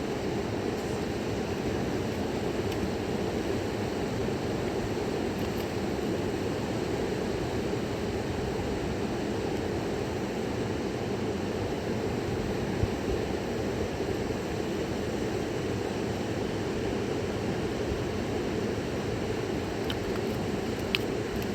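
Steady rush of a fast-flowing river, with a faint click about halfway through and another near the end.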